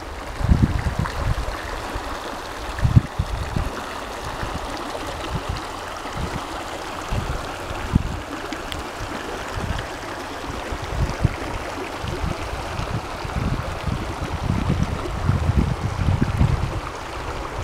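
Shallow mountain stream rushing over stones, a steady babble of water. Irregular gusts of wind buffet the microphone with low rumbles, heavier near the end.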